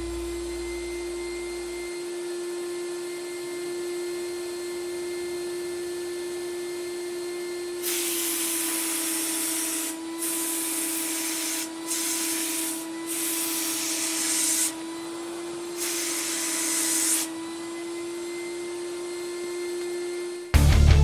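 Titan Capspray 105 HVLP sprayer's turbine running with a steady whine. From about eight seconds in, the spray gun is triggered in five bursts of hissing air and paint, each a second or two long.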